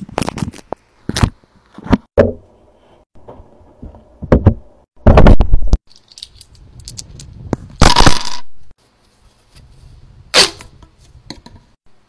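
Fidget toys being handled: a string of sharp clicks, cracks and knocks, with a loud rough burst about five seconds in and another around eight seconds.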